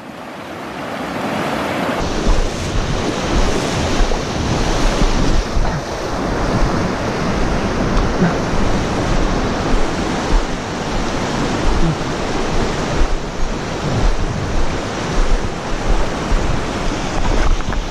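Fast river rapids rushing over rocks, a steady noise of white water that grows louder over the first couple of seconds, with wind buffeting the microphone in rough low rumbles.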